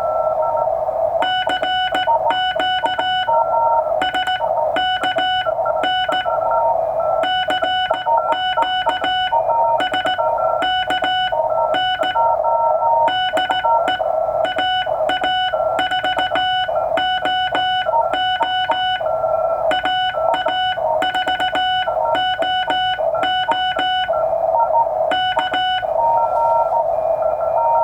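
Morse code (CW) from a Ten-Tec Century/21 transceiver: beeping tones keyed on and off in irregular dots and dashes, over a steady band of receiver hiss.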